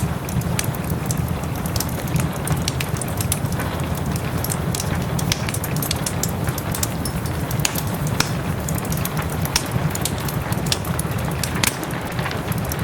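Wood fire crackling in a fireplace, with frequent sharp pops, over a steady hiss of soft rain and a low rumble.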